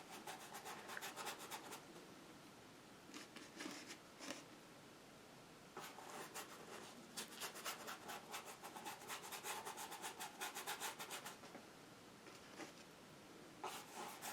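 Stiff bristle brush scrubbing acrylic paint: faint, quick repeated strokes in several spells, the longest in the second half.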